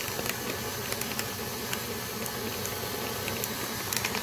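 KitchenAid stand mixer running at low speed, its flat beater working salted butter in a stainless steel bowl, with scattered light clicks over a steady motor noise.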